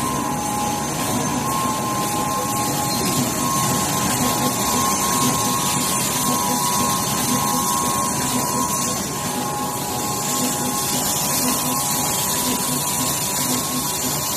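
LC-416T full servo rotary tube screen printing machine running: steady machine noise with a constant high hum.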